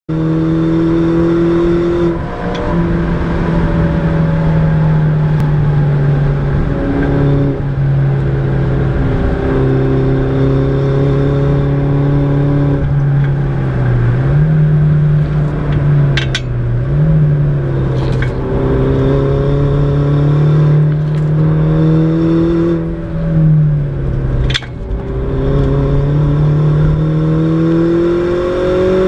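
Mini John Cooper Works R56's 1.6-litre turbocharged four-cylinder, heard from inside the cabin, pulling hard at track speed. The engine note holds high and steps with gear changes and throttle lifts, and three sharp cracks stand out in the second half.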